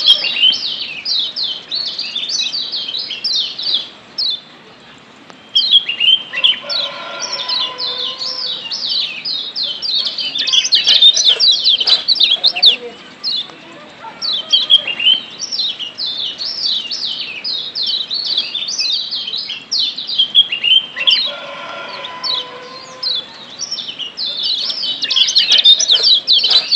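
Lombok yellow white-eyes (kecial kuning) giving their rapid, high 'ciak' chirping calls in fast runs, broken by short pauses a few times. A fainter, lower steady call sounds underneath twice.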